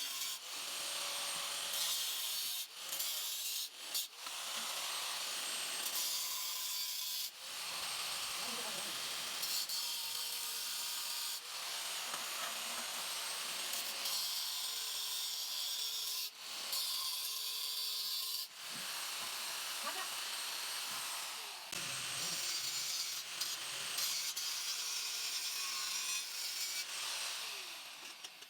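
Steady abrasive rubbing in stretches of a few seconds, broken by short breaks.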